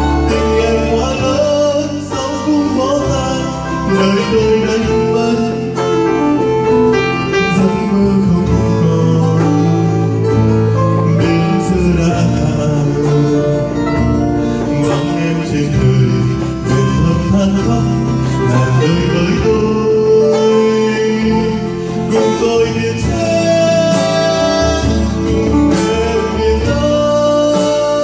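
A man sings a Vietnamese ballad into a microphone, accompanied by strummed acoustic guitar and a hand drum keeping a steady beat.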